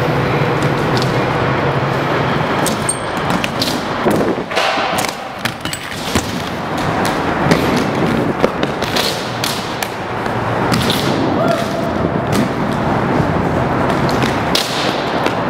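Skate wheels rolling over concrete and ramps, with many irregular sharp knocks and thuds from landings and wheels striking the ramps.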